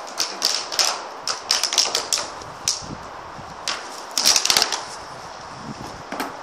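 Large empty plastic bottle crackling and clicking as a puppy bites and paws at it: irregular sharp crackles, with a dense flurry about four seconds in.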